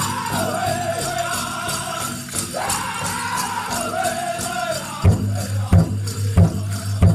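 Powwow drum group singing a high-pitched song over a steady drumbeat, with jingling bells. About five seconds in the singing stops and the big drum carries on alone with loud, evenly spaced beats, about one and a half a second.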